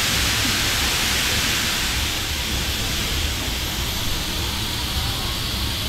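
Wind rushing over the microphone of a camera riding on a moving amusement ride: a steady, loud hiss with a low rumble underneath, easing a little about two seconds in.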